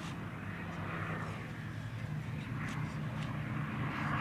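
Westland Lysander IIIA aircraft's Bristol Mercury radial engines droning steadily in flight overhead.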